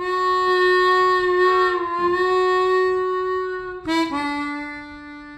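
Music from a solo wind instrument. It holds one long note, then steps down to a lower held note about four seconds in, fading slightly toward the end.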